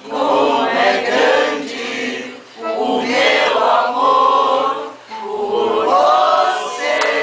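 A mixed group of men's and women's voices singing together in unison, without instruments, in phrases that pause briefly about two and a half and five seconds in.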